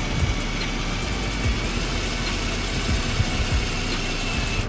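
Cordless drill with a 7/32-inch bit boring through a plastic fender bumper into the side of a Sea-Doo, the motor running steadily with a faint whine that rises slightly in pitch and stops near the end.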